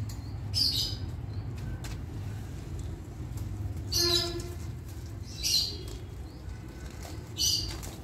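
Parrots giving four short, harsh calls, about a second in, around the middle, shortly after, and near the end, over a steady low background rumble.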